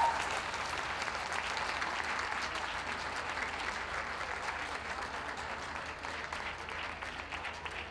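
Audience applauding steadily, easing off slightly toward the end.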